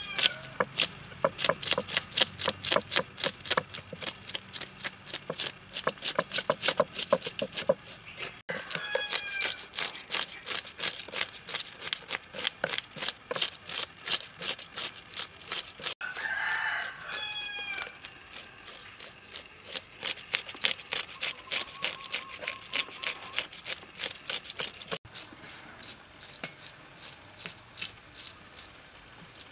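Plastic fish scaler scraping scales off a whole fish on a wooden board in quick, repeated strokes, about four a second. A rooster crows twice, about a third of the way in and just past halfway.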